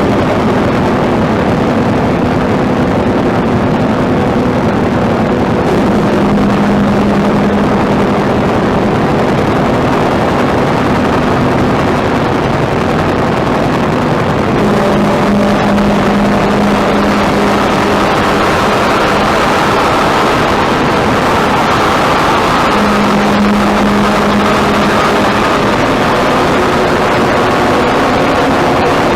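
Ambient noise music: a loud, dense, unbroken wall of noise with a low drone that swells up about every eight seconds, and a higher droning band that joins it in the second half.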